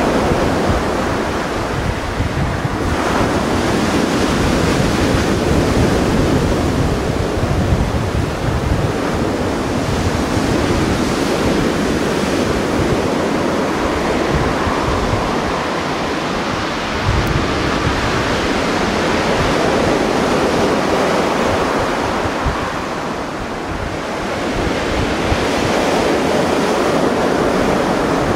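Mediterranean Sea waves washing ashore as a steady surf wash that swells and eases every several seconds, with wind buffeting the microphone.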